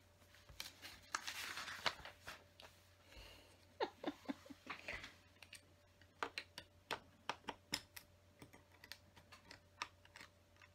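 Plastic LEGO pieces clicking and clattering as they are picked through and handled on a tabletop, with a brief rustle about a second in and a run of quick light clicks in the second half.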